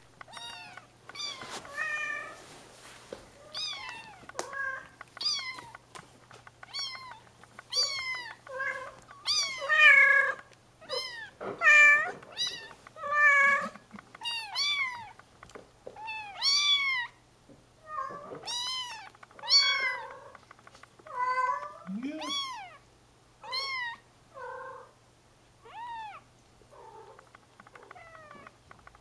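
Bengal kittens mewing over and over, high thin calls that rise and fall in pitch, about one a second.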